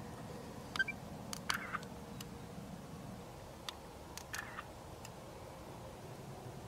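Camera shutter clicking several times at uneven intervals over a faint steady hiss, as photographs are taken into a mausoleum vault.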